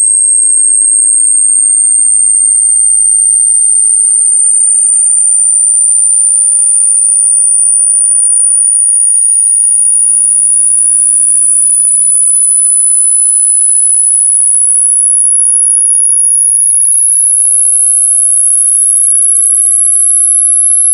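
Loud, very high-pitched synthesized sine tone, a single pure whistle-like pitch gliding slowly and steadily upward.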